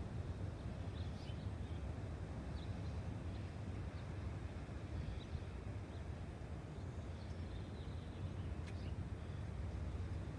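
Coastal outdoor ambience: a steady low rush of wind and distant surf, with faint short bird chirps scattered throughout.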